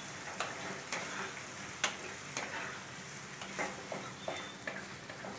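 Potatoes, onions, tomatoes and green chillies sizzling in oil in a metal kadai as they are stirred with a metal spatula, which clicks and scrapes against the pan at irregular moments.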